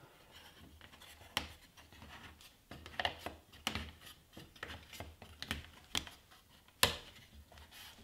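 Pine frame pieces being pushed and slid together by hand in their cross halving joints around a glass mirror: light rubbing with a scattering of small wooden knocks and clicks, one sharper knock near the end.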